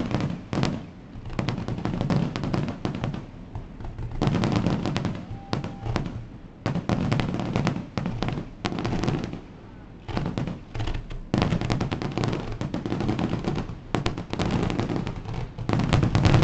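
Fireworks grand finale: rapid volleys of bangs and crackling from shells bursting, coming in bouts a second or two long with short lulls between. About eleven seconds in it becomes an almost unbroken barrage, loudest at the very end.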